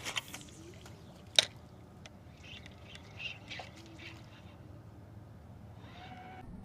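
Faint bird chirps and a short squawk over a low steady hum, with one sharp click about a second and a half in.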